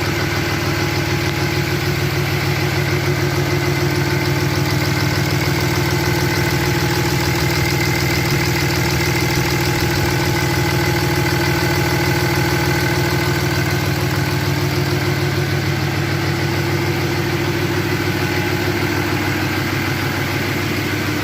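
6.7-litre Cummins inline-six turbo-diesel idling steadily, running again after a fuel filter housing replacement and priming.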